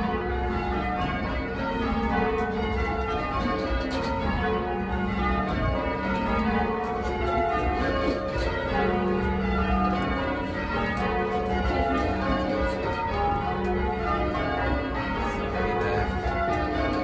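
Change ringing on a 14 cwt ring of eight church bells tuned to F sharp, mostly cast by Taylor's. The bells strike one after another in quick, continuous rows, their tones overlapping.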